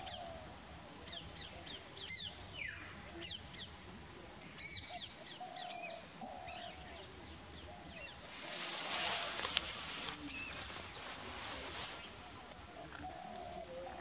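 Small birds chirping repeatedly in the background, with short falling chirps and a few lower call notes, over a steady high-pitched hum. About eight and a half seconds in there is a louder, brief splashing and clicking burst as the bar-headed goose works its bill in the shallow water.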